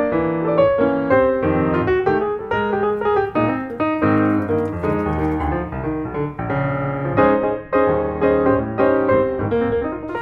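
Background piano music: a steady run of single notes and chords, several to the second.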